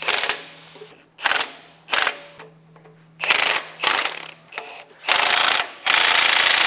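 Cordless impact wrench snugging up 15/16-inch bolts: six short bursts, then two longer runs from about five seconds in.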